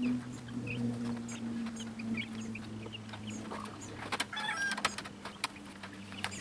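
Silkie chickens clucking softly inside a wire-covered coop, over a steady low drone. From about four seconds in come a run of sharp clicks and rattles of chicken wire and baling wire being worked by hand.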